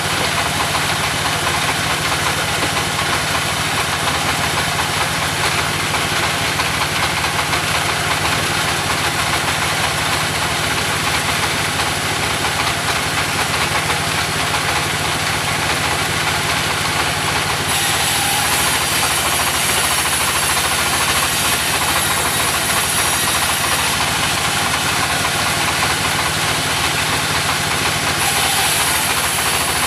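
Portable sawmill running steadily on its engine, with a high hiss joining in about two-thirds of the way through.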